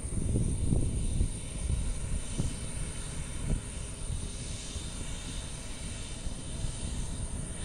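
Embraer KC-390 military transport's twin turbofan engines heard as a steady, rough low rumble.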